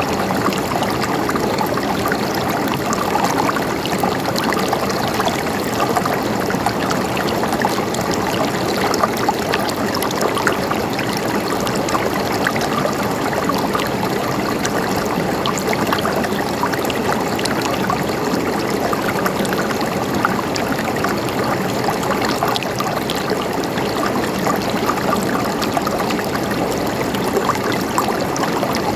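Mountain stream flowing steadily over stones, a continuous babbling and gurgling rush of water.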